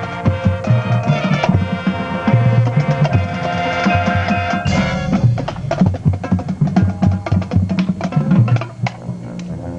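Marching band playing: the horns hold chords over drums, and about five seconds in the horns drop away, leaving the percussion playing sharp, rhythmic hits over low notes.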